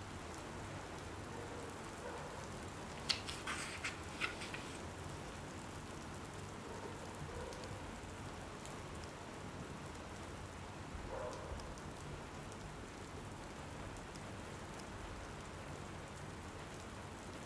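Steady rain falling, with a short cluster of light clicks or taps about three seconds in.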